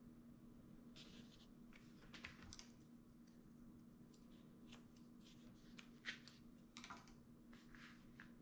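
Faint handling noises: scissors snipping jute twine and hands working twine against a paper-wrapped gift, heard as a scatter of light clicks and scratches over a low steady hum.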